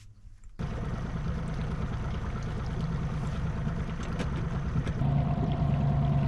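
A boat's outboard motor running steadily at trolling speed, with the rush of water and wind over it, starting abruptly about half a second in; around five seconds in the motor's hum becomes steadier and more pronounced.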